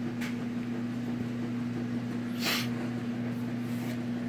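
Steady low electrical hum of a room appliance, with one short sniff about two and a half seconds in.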